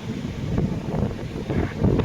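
Strong storm wind buffeting the microphone in gusts: a low rumbling noise that swells and dips unevenly.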